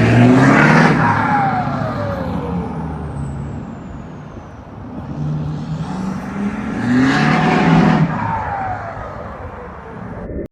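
Two vehicles drive past one after the other, the first right at the start and the second about seven seconds in. Each engine swells to its loudest, then its pitch drops as it goes by.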